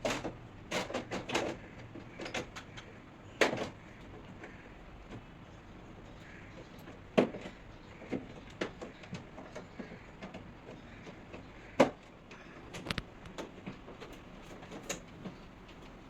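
Irregular clicks and knocks of an air conditioner's hard plastic parts being handled and fitted during servicing. The loudest knocks come about three and a half, seven, and twelve seconds in.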